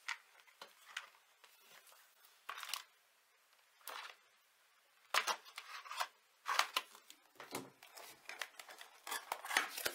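Scissors cutting open the sealed end of a long cardboard box, with the box scraping and rustling as it is handled: a series of short, quiet snips and scrapes, sparse at first and coming thick and fast from about halfway through.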